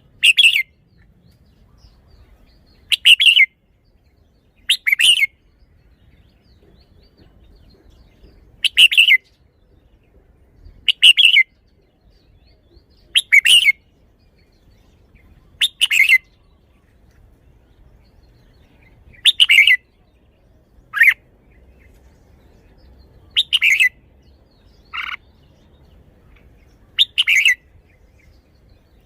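Red-whiskered bulbul singing short, loud whistled phrases, about a dozen of them, each roughly half a second long and repeated every two to three seconds.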